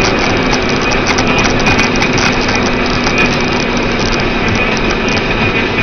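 A vehicle engine idling under a steady, even noise, with a faint low hum that fades about four seconds in.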